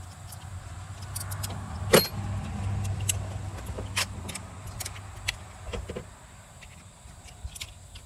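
Metal hand tools being handled: a ratchet and 18 mm socket clinking and clicking irregularly, with one sharp click about two seconds in, over a low steady hum.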